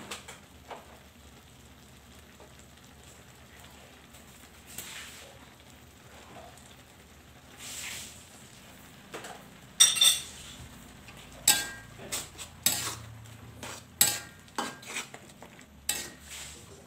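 Metal spatula stirring noodles in an aluminium wok, clanking and scraping against the pan in quick, irregular strokes from about ten seconds in. Before that only faint cooking noise with a couple of soft swishes.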